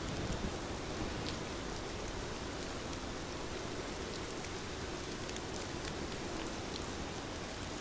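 Rain falling steadily on a surface, an even hiss scattered with small drop ticks.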